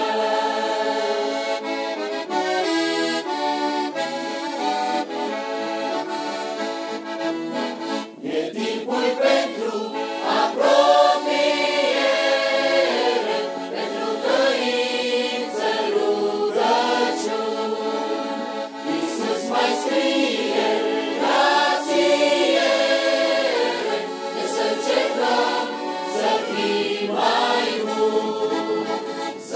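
Mixed choir of men's and women's voices singing a Christian hymn in parts, with sustained chords.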